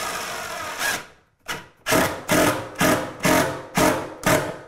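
Cordless drill-driver driving a 1-inch screw into a cabinet box: it runs steadily for about a second, then is fed in about seven short trigger pulses, roughly two a second, as the screw is brought down flush.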